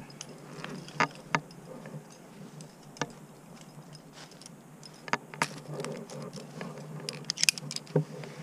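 A rock climber's metal gear clinking and his hands scuffing on the rock: scattered sharp clicks and taps, busiest about seven seconds in.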